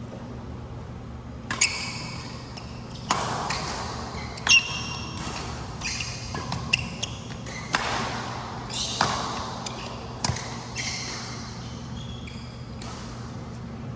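A badminton rally: sharp racket strikes on the shuttlecock about every second or so, with brief squeaks of court shoes on the floor and the echo of a large hall.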